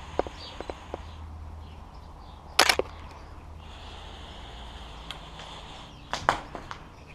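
Footsteps crunching on a debris-strewn floor: a few light clicks, one louder crunch about two and a half seconds in, and a quick cluster of sharp clicks near the end.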